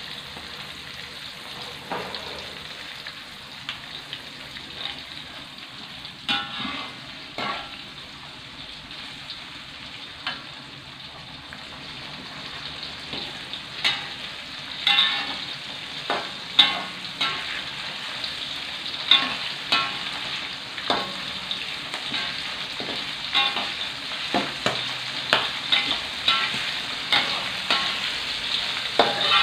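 Chillies, shallots and garlic frying in oil in a steel wok, sizzling steadily, while a metal spatula scrapes and clacks against the wok as they are stirred; the stirring strokes come more often and louder in the second half.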